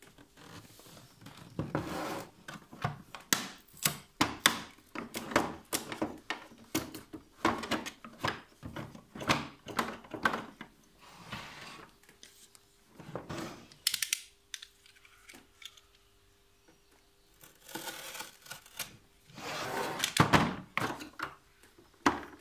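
Bosch L-Boxx hard plastic tool case being handled and opened: clusters of knocks, clicks and rattles as it is moved, its latches unsnapped and the lid lifted, with a quieter pause partway through.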